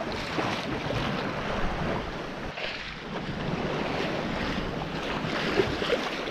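Sea water rushing and splashing along the hull of a sailboat under way through choppy open ocean, swelling and easing with the waves, mixed with wind buffeting the microphone.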